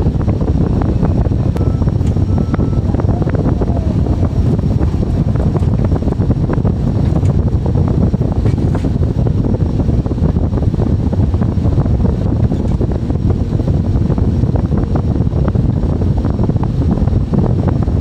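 Excavator running under load while compacting trench backfill with a wheel attachment, heard from inside the cab: a steady, dense low rumble with scattered small knocks and rattles.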